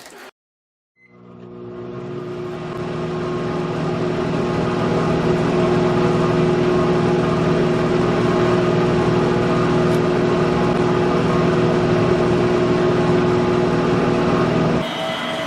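A dense, steady drone of hum and hiss with several held tones, fading in over a few seconds after a moment of silence and then holding steady at full strength.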